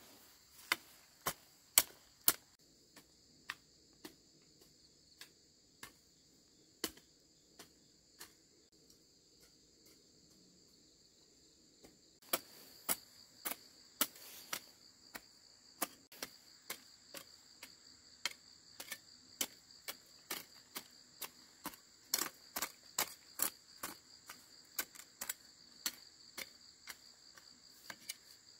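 Hand hoe with a metal blade chopping into garden soil in a string of sharp strikes, sparse in the first half and coming about two a second in the second half. Insects trill steadily underneath.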